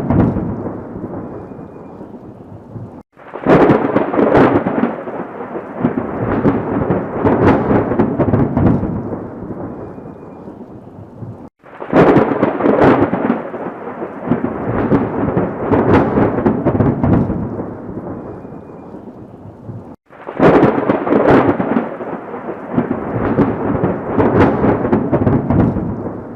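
Thunderstorm: sharp thunderclaps that roll off into a fading rumble over steady rain. The same clap-and-rumble comes round three times, about every eight and a half seconds, each time after a split-second drop-out, as in a looped recording.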